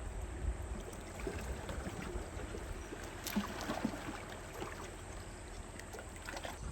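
Small waves lapping and trickling among shoreline rocks, with scattered little splashes and ticks, over a low wind rumble on the microphone.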